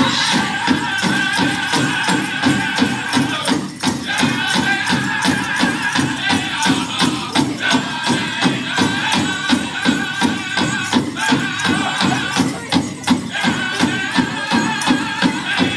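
Powwow drum group playing a chicken dance song: singers in high voices over an even, rapid beat on a big drum, the singing pausing briefly a few times.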